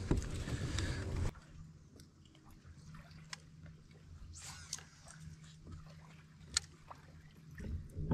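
A low rushing noise for about the first second cuts off suddenly. After it, a faint steady low hum runs under scattered small clicks and ticks of rod and reel, with a brief swish about halfway through as a cast is made.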